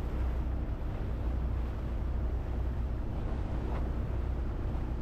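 Motorboat engine running steadily as a low drone, with a steady rush of water and wind over it.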